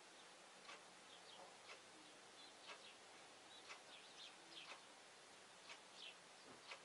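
Near silence with a faint, even tick once a second, like a clock, and a few faint bird chirps in between. The forage harvester and tractor in the field are not heard.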